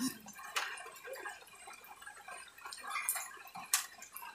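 A few sharp clicks over faint background noise, the loudest about three-quarters of the way through.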